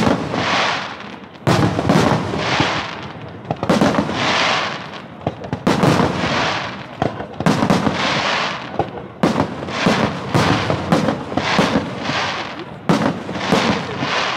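Aerial firework shells bursting overhead in a rapid string of sharp bangs, roughly one or two a second, each followed by a rolling, echoing tail.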